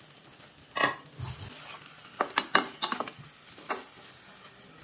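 Metal spoon knocking and scraping against an aluminium pot while mustard masala is stirred over pieces of hilsa fish: one ringing clank about a second in, then a quick run of clicks and scrapes, over a faint sizzle from the pan.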